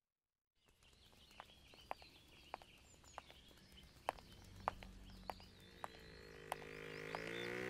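Faint outdoor ambience with birds chirping and sharp footsteps about every half second, likely sandals on pavement. It follows a brief silence at the start, and background music fades in near the end.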